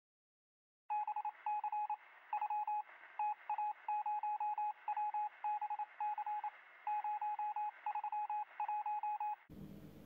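Electronic beeps at one steady pitch, in quick irregular groups like tapped-out code, starting about a second in and stopping half a second before the end, where faint room noise takes over.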